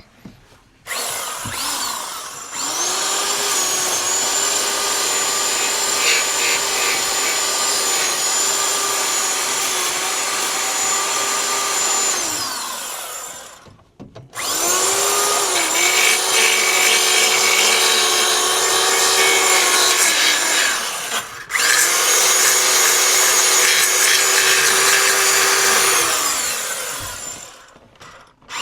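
Power file (narrow belt sander) running under load, sanding paint off the steel floor pan. It runs in three long goes: it speeds up about a second in, runs until about halfway, runs again briefly, and then runs once more before winding down near the end.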